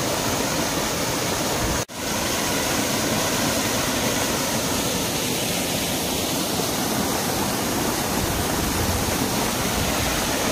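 Rushing water of a rocky stream flowing and splashing, a steady, loud rush that cuts out for an instant just under two seconds in.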